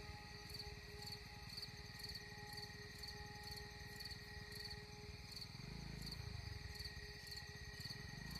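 Insects chirping in a steady rhythm, about two chirps a second, with a continuous insect drone beneath. A low rumble comes in about five and a half seconds in.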